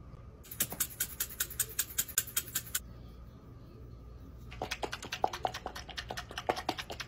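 Condiment bottles shaken hard over a jar of pickles: two runs of quick, sharp rattling strokes, about eight a second, each lasting a couple of seconds with a short pause between.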